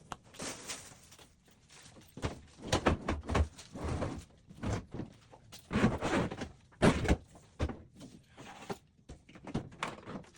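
A run of irregular knocks, thuds and scrapes, like something hard being handled and shifted about.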